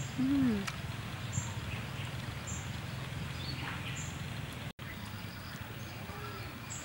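Outdoor ambience: a steady background hiss and low hum, with short high chirps roughly every second. Near the start comes one brief hummed 'mm' from someone tasting food.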